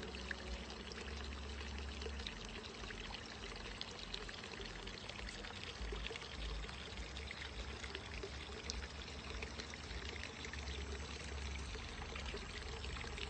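Running water, a steady rushing with a low rumble that comes and goes.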